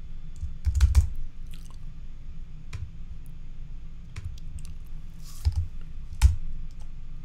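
Keystrokes on a computer keyboard: scattered, irregular clicks with pauses between them, as a few characters of code are typed.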